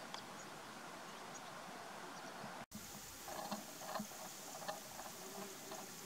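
Quiet outdoor ambience: a steady hiss with faint high ticks. After a sudden break a little under three seconds in, it resumes with a scatter of short chirping notes and clicks.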